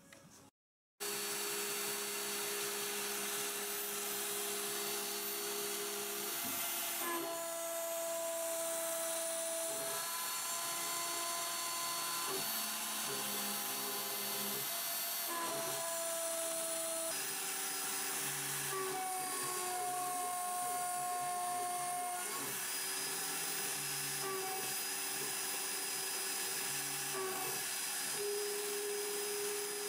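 Small CNC milling machine's high-speed spindle cutting aluminium plate with an end mill, starting about a second in: a steady high whine and hiss, with lower tones that hold for a few seconds and then shift pitch as the cutter moves along its path.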